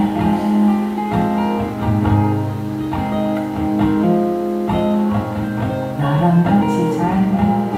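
Music led by acoustic guitar, with plucked chords and single notes ringing on.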